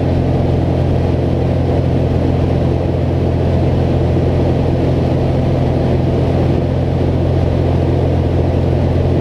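Small plane's engine and propeller droning steadily, heard from inside the cabin: a loud, unchanging low hum with a rushing noise over it.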